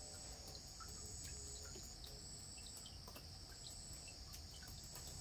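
Faint insects chirring in the surroundings: a steady high buzz with a second, higher trill that comes and goes every second or so.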